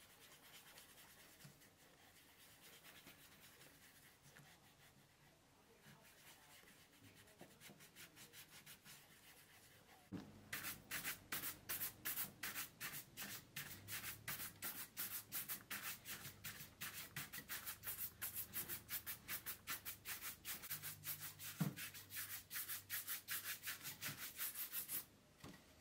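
Horsehair shoe brush buffing cream polish on a leather shoe. Faint rubbing at first, then from about ten seconds in, brisk back-and-forth brush strokes at about four a second, with one light knock near the end. This brushing is what brings up the shine of the polish.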